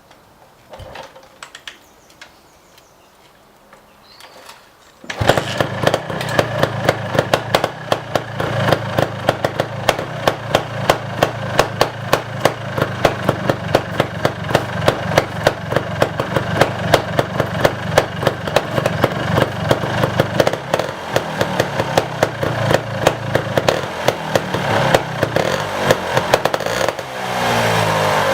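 2006 Beta Rev 3 250 trials motorcycle's two-stroke engine starting: a few faint knocks, then about five seconds in it catches and runs at idle with an uneven popping beat. Near the end the revs rise briefly.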